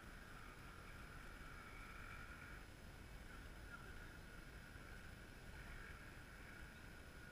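Near silence: faint, steady background hiss with a faint high hum.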